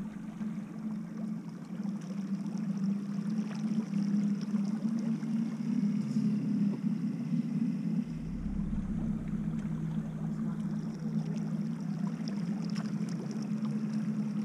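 River current running past a drift boat's hull and oar blades: a steady, low-pitched rush of water.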